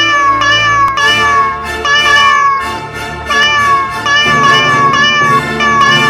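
A rapid string of cat meows, one after another about two to three times a second, standing in for the clashes of lightsabers, over music.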